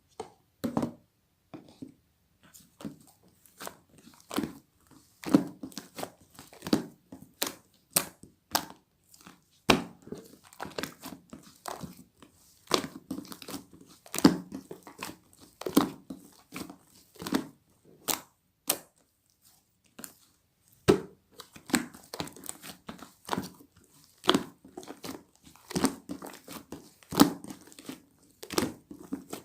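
Irregular crinkling and crunching, in sharp crackles about one or two a second.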